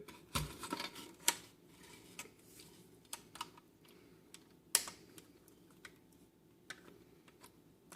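Scattered light clicks and taps of a flat-blade screwdriver working at the plastic clips of a BMW E30 instrument cluster's green housing, with quieter gaps between; the sharpest click comes near five seconds in.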